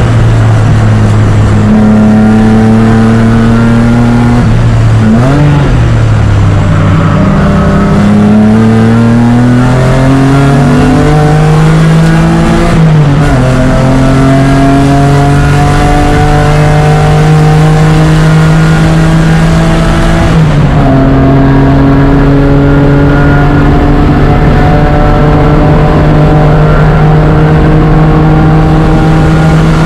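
BMW E36 race car engine heard from the cockpit under hard acceleration, very loud, its pitch climbing steadily and dropping abruptly a few times at gear changes.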